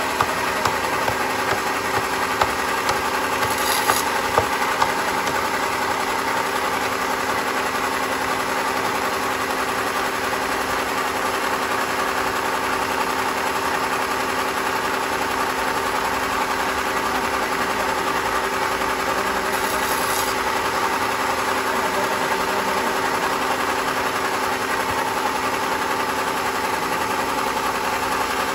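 Band sawmill running with a steady, even hum. Several sharp knocks in the first few seconds, as a hammer strikes the end of the log.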